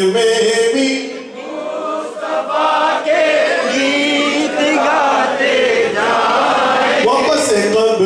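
A man singing a naat, an Urdu devotional poem, unaccompanied, in long wavering held notes, with a short pause about a second in.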